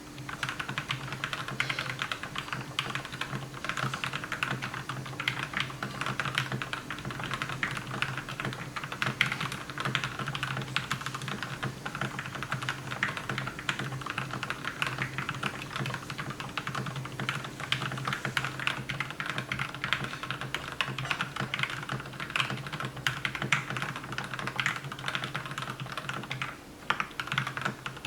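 Fast continuous typing on a JKLP87 mechanical keyboard fitted with lubed and filmed Gateron Milky Yellow linear switches in black bottom housings: a dense run of key clacks, with a brief pause near the end.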